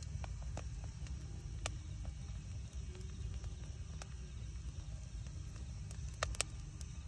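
Wood fire burning: a steady low rumble with scattered sharp crackles and pops, the loudest pair about six seconds in.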